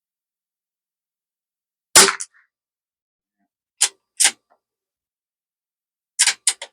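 A single .22 rimfire rifle shot about two seconds in. The bolt is then worked with two sharp clicks, and three quick metallic clicks follow near the end.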